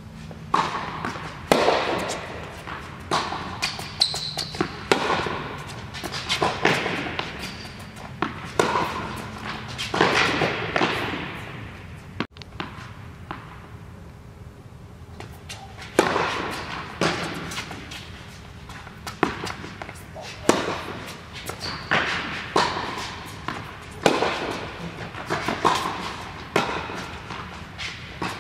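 Tennis rally on an indoor court: a sharp racquet strike on the ball about every second or so, mixed with ball bounces, each echoing in the hall.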